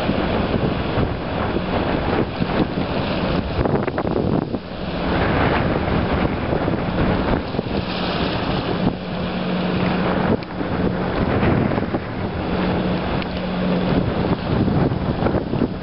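Strong wind buffeting the microphone, with the low steady hum of an enclosed tender boat's engine coming and going as it motors across the lagoon.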